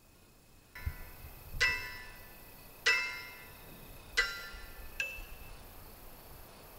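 A low thud, then four strikes on a metal chime or bell, each ringing out and fading. They fall about a second and a half apart, and the last is softer.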